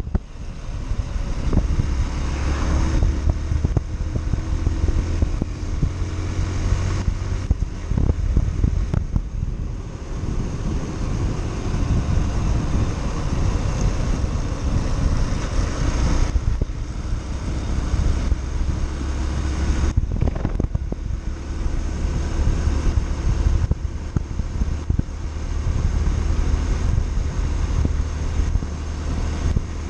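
Yamaha Factor 150's single-cylinder four-stroke engine running steadily on the move, under heavy wind noise on the microphone.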